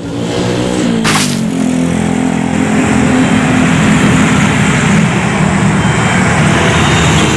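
Road traffic going past close by: motorcycle and car engines running, one passing with a falling pitch at the start, then a steady mix of engines, with a short hiss about a second in.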